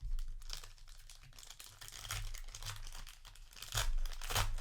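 Plastic trading-card booster pack wrapper crinkling and rustling as it is handled, with a louder burst of crinkling near the end.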